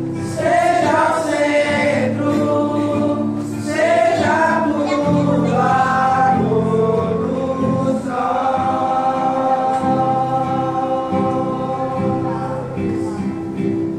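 A Christian worship song sung over acoustic guitar accompaniment, ending on a long held note.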